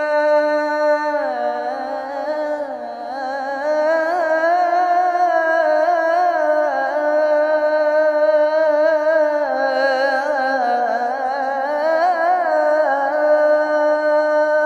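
Adhan sung by a male muezzin: a long, richly ornamented melisma on the phrase "hayya ʿala al-falah", held notes and winding runs that rise and fall in pitch, in maqam Nahawand with Kurd passages woven in.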